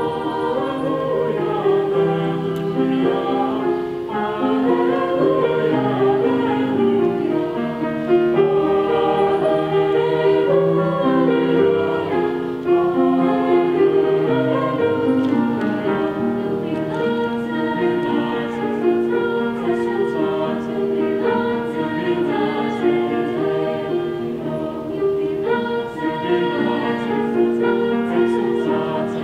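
Small high school choir singing held chords in several parts, with piano accompaniment.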